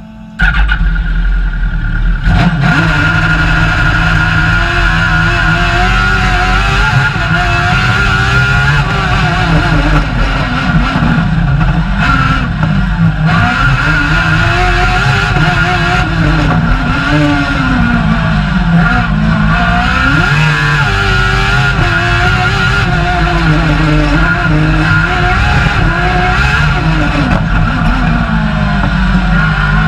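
Suzuki GSX-R1000 K8 inline-four motorcycle engine in a Fićo racing car, heard from inside the cabin. It starts suddenly and loudly about half a second in, then revs hard, its pitch climbing and dropping again and again as the car is driven flat out through the course.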